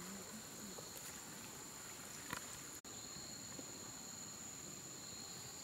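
Forest insects trilling steadily, a constant high drone at two pitches, with a faint knock a little past two seconds in.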